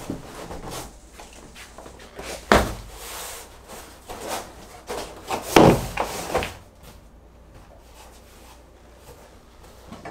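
Large cardboard shipping box being handled: cardboard rubbing and scraping with several knocks and thumps, the loudest about two and a half and five and a half seconds in, then quieter for the last few seconds.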